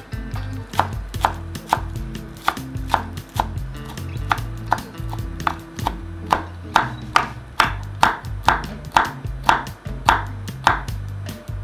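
Kitchen knife chopping red chili peppers into rings on a wooden cutting board: a steady run of knocks, a little over two a second.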